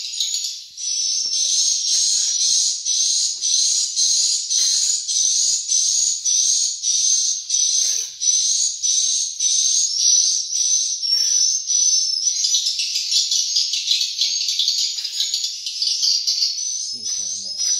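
Swiftlet calls: a steady run of short, high twittering chirps, about two a second, thickening into a denser chatter for a couple of seconds about two thirds of the way in.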